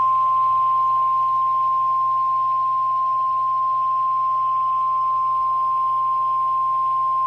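NOAA Weather Radio's 1050 Hz warning alarm tone: one long, steady tone over faint radio hiss and hum. It is the signal that an emergency alert follows, here a severe thunderstorm warning.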